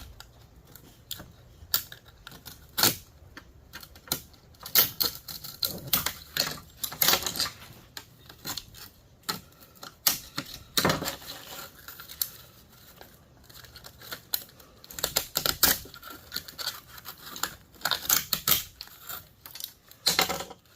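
Small parts of an electrical line conditioner being handled and cut apart: irregular sharp clicks, snips and clatter of small metal and plastic pieces, in uneven bursts.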